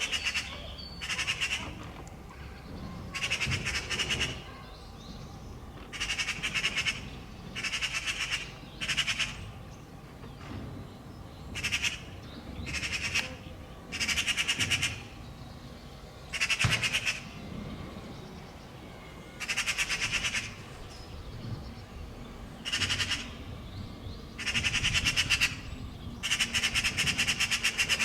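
Eurasian magpies giving their harsh rattling chatter in about a dozen bursts of roughly a second each, every one to three seconds. It is the alarm call of a pair mobbing a cat near their fledgling.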